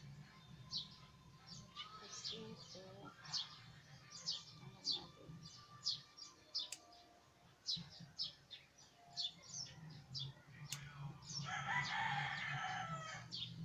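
A rooster crowing once near the end, lasting under two seconds. Under it, small birds chirp over and over in short, quick calls.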